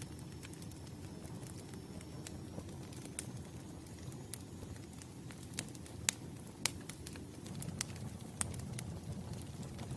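Campfire crackling: a low steady rumble of burning wood with scattered sharp pops and snaps, a few louder pops in the second half.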